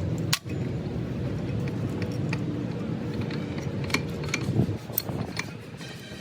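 Scattered metallic clinks and taps of metal tools or parts being handled, over a steady low hum.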